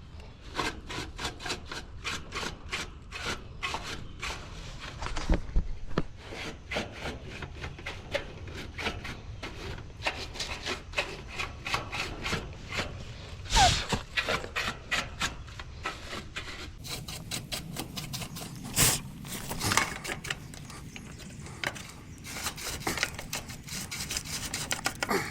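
Rapid back-and-forth scrubbing on an air-conditioning condenser unit during cleaning: a long run of quick rasping strokes, several a second, with a few louder knocks in between.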